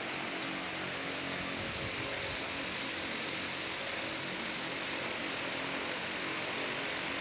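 Steady machine hum with a hiss over it, unchanging throughout, with no voices: the ambient noise of a large crowd standing in silence.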